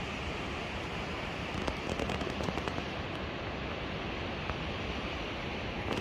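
Steady outdoor rushing noise, with a short run of crackling clicks about two seconds in.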